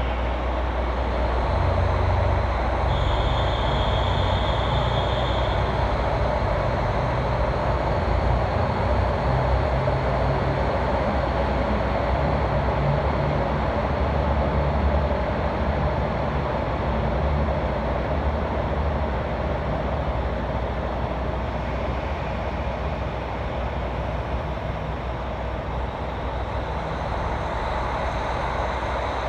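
KiHa 40 series diesel railcar's diesel engine running under power as the train pulls away, a steady low rumble. A high steady tone sounds for a few seconds about three seconds in.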